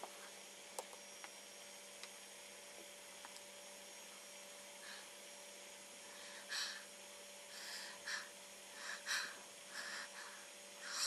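Faint steady electrical hum over hiss, with a single click about a second in. From about six and a half seconds in, a string of short, soft noisy sounds comes irregularly, one or two a second.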